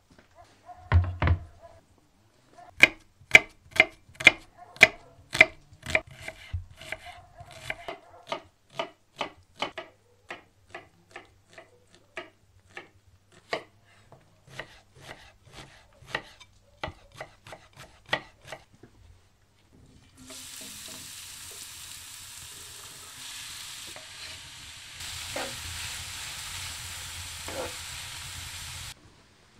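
A thump, then a kitchen knife chopping onion on a wooden cutting board in steady, even strokes for about sixteen seconds. Then chopped onion sizzling in hot oil in a cast-iron pan, with a wooden spatula scraping through it twice near the end.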